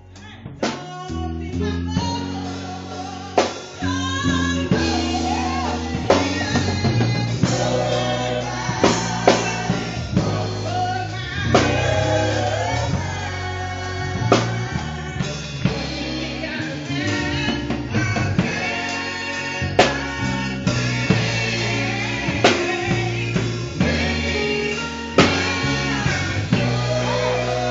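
Live gospel singing: a group of women's voices singing into microphones over a band with drum kit, bass and keyboard, drum hits at a steady beat.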